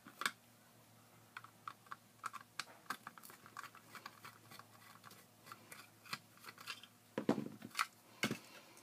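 Screwdriver backing small screws out of a plastic light housing: a run of light clicks and ticks. Two louder plastic knocks come near the end as the housing is handled.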